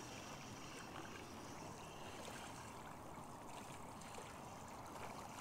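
Faint, steady wash of water lapping against a small boat's hull, with a few faint light ticks.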